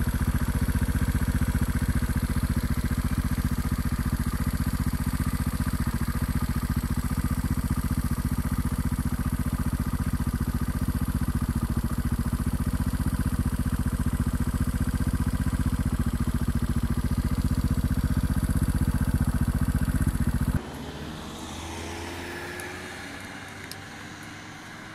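Beta Alp 200's air-cooled single-cylinder four-stroke engine running steadily as the motorcycle is ridden, heard from on the bike. It cuts off abruptly near the end, giving way to a much quieter background.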